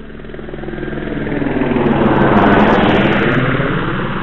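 Helicopter flying past: engine and rotor noise swells to its loudest about two and a half seconds in, then fades away, its pitch sinking slightly as it passes.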